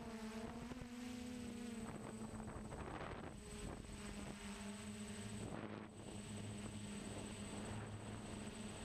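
DJI Flame Wheel F450 quadcopter's motors and propellers humming as picked up by its onboard camera, with wind noise on the microphone. The motor pitch wavers and dips about two seconds in while the wind noise gets heavier, then the hum settles again a few seconds later.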